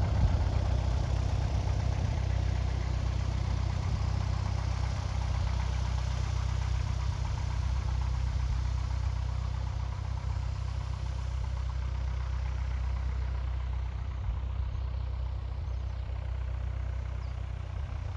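An engine idling steadily with a low, even hum, under a rushing hiss that fades over the last few seconds.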